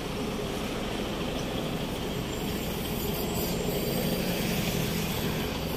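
Steady outdoor background noise with a low rumble, level throughout.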